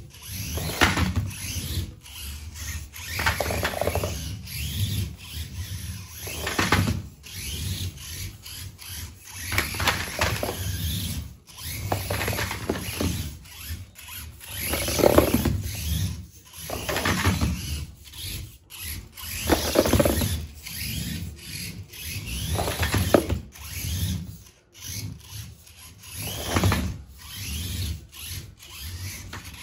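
Micro RC monster truck's Surpass 8600kv brushless motor whining in repeated bursts, rising and falling in pitch as it speeds up and slows down every couple of seconds. Its tires squeal and scrub on a hardwood floor.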